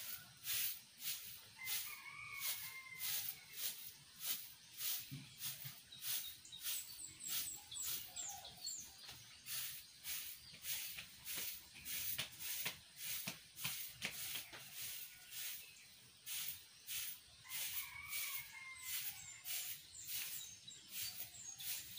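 Stiff stick broom sweeping over short lawn grass in quick, regular strokes, about two swishes a second, gathering up freshly trimmed grass clippings.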